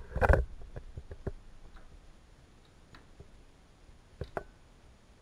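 Knocks and light clicks of hard plastic being handled on the opened top panel of an LG top-loading washing machine: a cluster of knocks right at the start, a few faint clicks, then two sharper clicks about four seconds in as a hand takes hold of the water level sensor.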